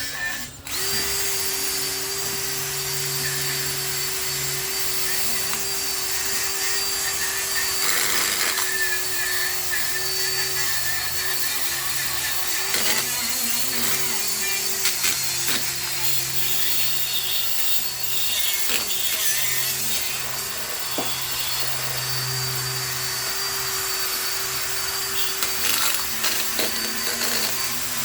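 Handheld power tool running continuously while stripping rust and old finish off a steel truck rear-axle housing. The motor's pitch holds fairly steady, with small changes as it is pressed into the metal. It stops briefly right at the start, then runs on.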